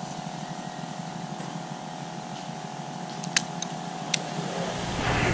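An engine running with a steady hum, with a low rumble building about four and a half seconds in. A few light, sharp clicks come between about three and four seconds in.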